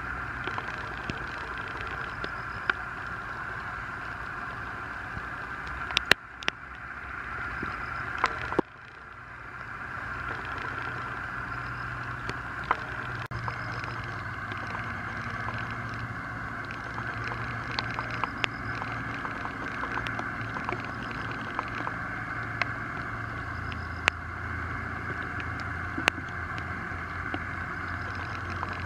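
Gill net being handled in a small wooden boat: scattered light clicks and knocks as the net is pulled and piled into the hull, over a steady background hum. The background briefly drops away about nine seconds in.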